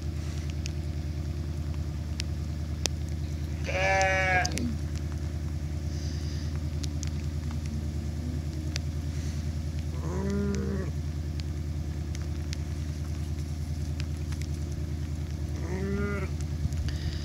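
Sheep bleating three times: a loud bleat about four seconds in, then two shorter ones around ten and sixteen seconds in. Under them runs a steady low mechanical hum.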